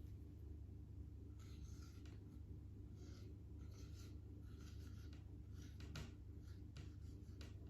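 Faint writing sounds: a pen or marker scratching in short strokes, over a low steady hum.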